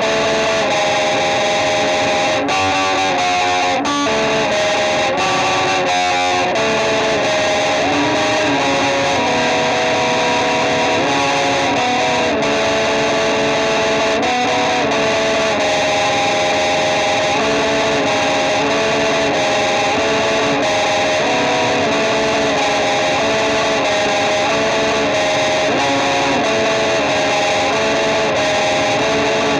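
Band music led by a distorted electric guitar, with no singing.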